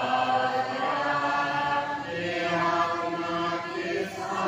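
A congregation chanting a liturgical Mass response together in unison, many voices holding long sung notes.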